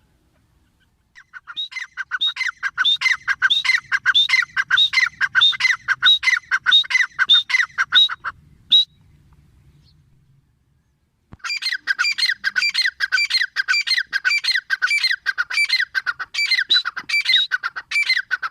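Grey francolin calling: two long series of rapid, repeated high notes, about four a second, separated by a pause of a few seconds.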